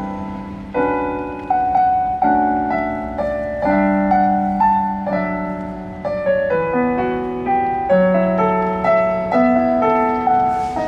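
Electric piano on a Yamaha keyboard playing an instrumental passage of chords and melody notes through PA speakers, each note struck and then fading.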